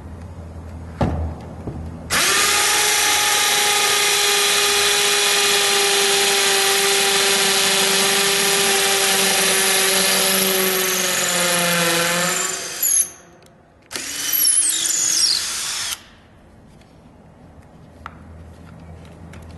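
Milwaukee M18 cordless hammer drill running at full speed for about ten seconds, its pitch sagging near the end, then a second short run of about two seconds that winds down with a falling whine.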